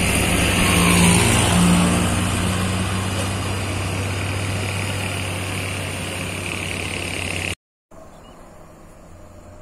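Heavy diesel truck engine working under load as the truck pulls away uphill, the engine sound fading steadily as it moves off. About three-quarters of the way through the sound cuts off suddenly, and a much quieter roadside background follows.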